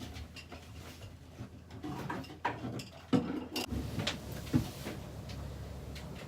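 Knocks, clicks and clatter of items being handled and moved about in a boat's storage locker, with sharp knocks about three seconds in and again about four and a half seconds in. A low steady hum comes in a little before four seconds.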